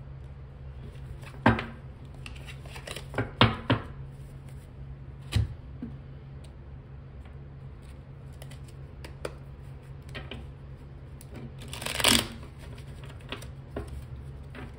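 Tarot cards being handled: a few sharp snaps and slaps of cards in the first six seconds, then a longer rustling slide of cards about twelve seconds in.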